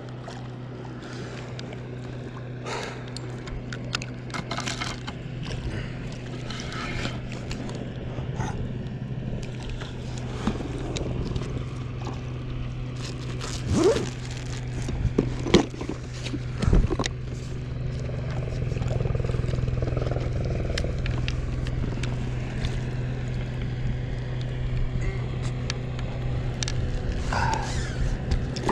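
Spinning reel being cranked and a rod being handled while a fish is played on the line. Scattered clicks and a few loud knocks come around the middle, over a steady low motor hum.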